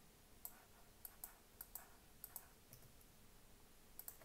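Faint, scattered clicks of a computer mouse, several in the first two and a half seconds and a couple more near the end.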